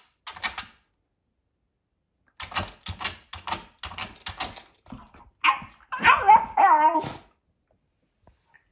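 A Shiba Inu whining, a loud pitched cry that wavers up and down for under two seconds, beginning a little past halfway. Before it comes a run of quick clicking taps.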